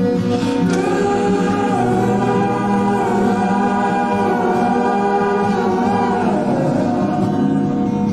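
Music: a song passage of sustained, wordless harmonised singing, held chords that slide down in pitch near the end.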